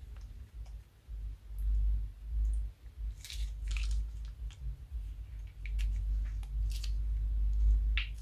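Slime squeezed from a plastic piping bag onto slime in a bowl: soft sticky squelches and short crackles, a few sharper ones around the middle and just before the end, over a low rumble.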